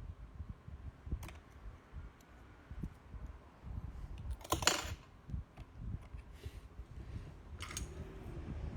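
Typing on a mechanical keyboard: a run of soft, uneven keystrokes, with a brief louder swish about halfway through and a shorter one near the end.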